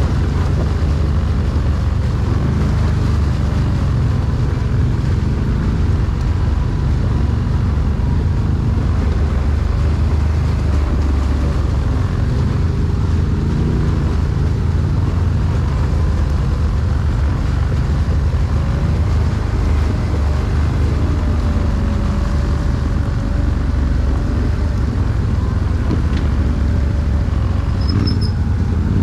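ATV engine running steadily under way on a trail, a loud, even low drone throughout.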